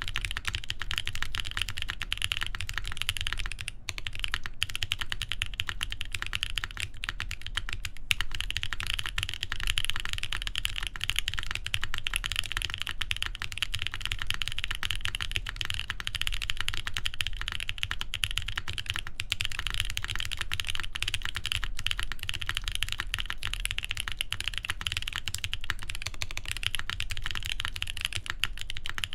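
Continuous fast typing on a mechanical keyboard with lubed Boba U4T tactile switches, carbon fibre plate and GMK keycaps: a dense stream of keystroke clicks with a brief pause about four seconds in.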